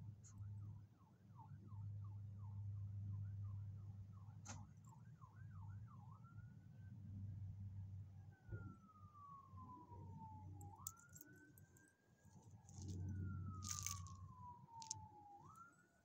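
A distant emergency-vehicle siren: a fast up-and-down yelp for the first five seconds or so, then a slower wail that glides down and snaps back up twice. A faint low hum runs underneath.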